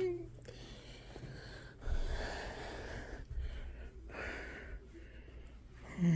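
A person breathing out audibly close to the microphone, twice, one longer breath about two seconds in and a shorter one about four seconds in; a hummed note begins right at the end.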